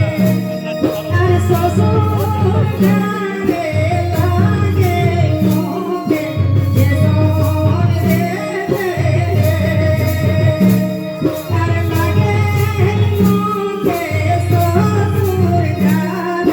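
Karam folk song in the Kudmali style: a singing voice over a steady beat of drums and percussion with a repeating bass line.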